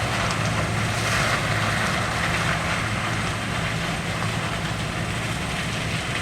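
An engine running steadily with a constant low hum, under a wash of noise.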